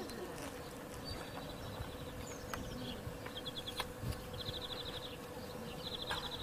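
Insects chirping in short, rapid high trills, three times, over a steady faint hum, with a few light clicks.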